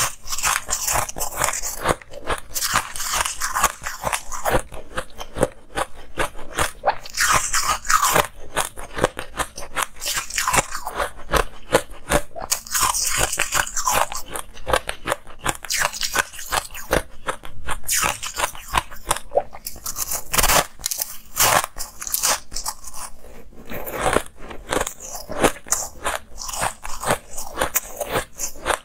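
Close-miked biting and chewing of ice: a dense, irregular run of crisp crunches.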